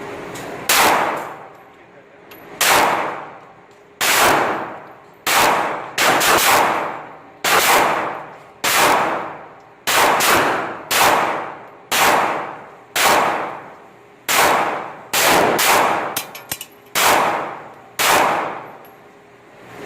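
Smith & Wesson Sigma SW9VE 9mm pistol fired in slow, steady succession: about seventeen loud shots, roughly one a second, each with an echoing tail. The shots test-fire the newly fitted Apex trigger kit.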